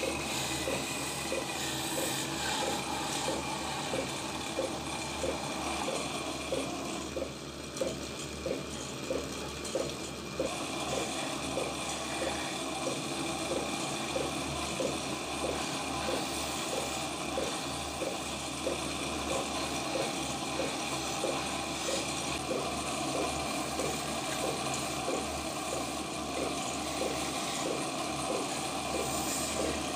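Wood lathe running while a hand-held chisel cuts the spinning wooden blank: a steady hiss of cutting, with a regular light tick about every two-thirds of a second. The cutting eases off briefly a few seconds in, then comes back.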